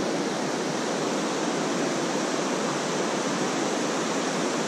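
Steady rushing of a fast mountain river, an even wash of water noise with no distinct events.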